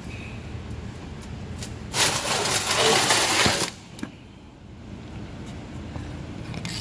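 A loud burst of even noise, about two seconds in, lasting under two seconds, over a low steady background.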